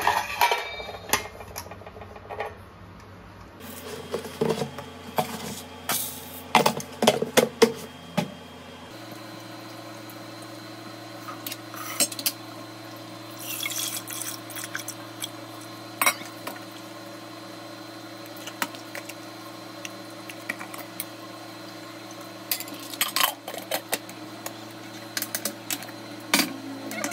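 Metal pots and utensils clinking and knocking as rice is set to cook, busiest a few seconds in and then sparser, with a little water handling.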